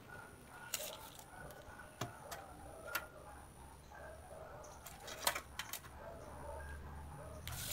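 Scattered light clicks and taps of a film-wrapped aluminium profile and a tape measure being handled on a wooden tabletop, about half a dozen in all.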